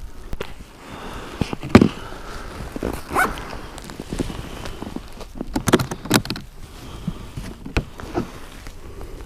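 Footsteps and scattered knocks at irregular intervals, a few sharper ones standing out.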